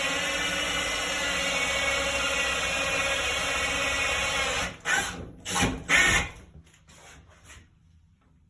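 Electric drill with a 2-1/8 inch hole saw cutting through wood, running steadily with a whine in it. It stops a little over halfway through, then comes three short, louder bursts, then a few faint knocks.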